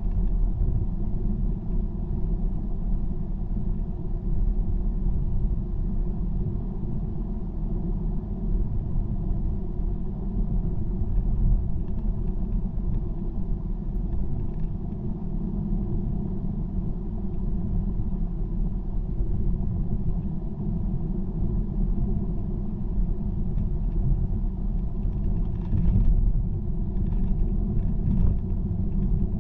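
Car driving on the road: a steady low rumble of tyre and road noise.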